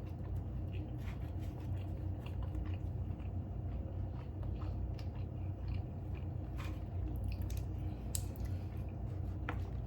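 Close-miked chewing and biting of a mouthful of plant-based Impossible Burger: many small, irregular wet mouth clicks over a steady low hum.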